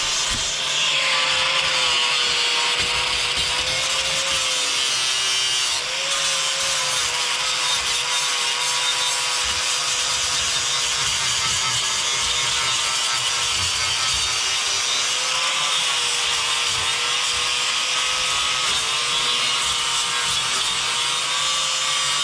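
Angle grinder with a stiff sanding disc running under load, grinding mortar off a steel window header: a steady motor whine that wavers slightly as the disc is pressed, over a harsh grinding hiss, with a brief dip about six seconds in.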